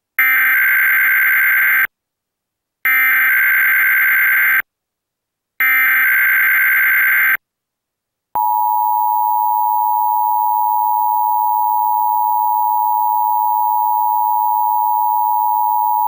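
Emergency Alert System test tones: three short bursts of warbling SAME header data, each just under two seconds, then about eight seconds in the steady two-tone EAS attention signal (853 and 960 Hz) starts.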